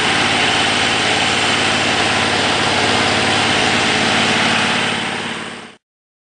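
Standing seam metal roofing roll former running with a steady machine drone. It fades out about five seconds in and cuts off.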